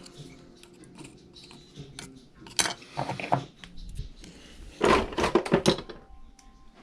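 Small metal tools clinking and tapping against small metal parts in two short clusters of quick taps, the second a little louder, as a stuck nut is worked loose from the steering servo horn.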